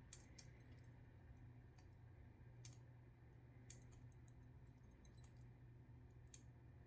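Near silence with a faint steady low hum and a scattering of light, sharp clicks, about seven spread across the few seconds, like small tools and containers being handled.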